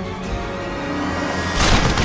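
Action-film background music with held notes. About one and a half seconds in, a loud crash-like noise sweeps down in pitch.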